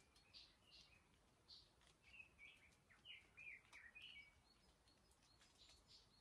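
Faint wild bird calls: a run of short, high chirps repeating about twice a second, then a few lower notes sliding downward around the middle, over a faint steady hiss.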